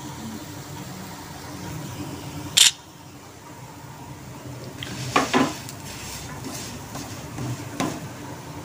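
Kitchen utensils clattering around a dosa pan on the stove: a short, loud scrape about two and a half seconds in, then a couple of sharp knocks around five seconds and one more near the end.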